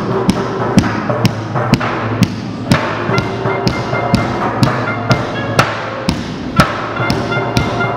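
Drumsticks beating a steady beat of about two strikes a second on plastic water-cooler jugs, an improvised drum kit on a shopping cart, over music with held notes.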